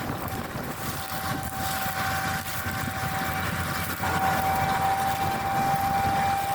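Claas Lexion 8900 combine harvester running while harvesting wheat, heard as a steady machine din with a constant whine that gets louder about four seconds in.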